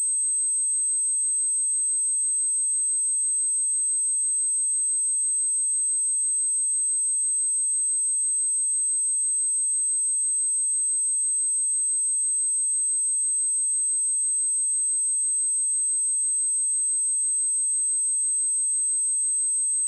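Steady 8251 Hz sine-wave test tone: a single pure high-pitched tone held at constant level, with no other sound.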